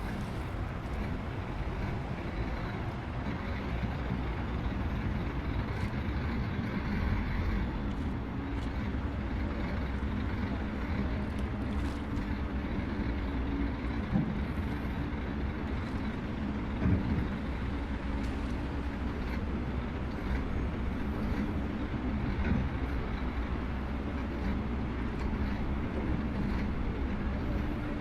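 Diesel engines of heavy earthmoving machinery (bulldozer and excavators) running steadily under work, a low continuous rumble. A few short knocks stand out, the loudest about seventeen seconds in.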